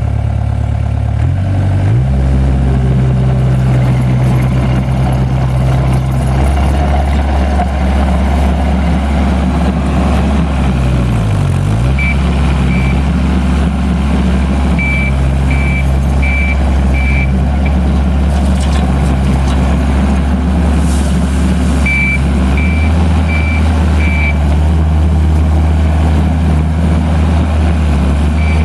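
Takeuchi TL130 tracked skid steer's diesel engine running steadily, with its reverse alarm beeping in short runs of two to four beeps several times as the machine backs up. About a third of the way in the engine note dips briefly and comes back.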